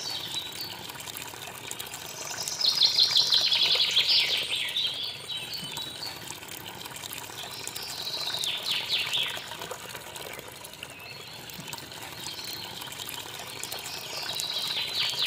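Thin stream of water from a mini water pump pouring into a small toy pond: a steady splashing trickle. Bird song breaks in three times, rapid chirping trills about three seconds in, about eight seconds in and near the end, the first the loudest.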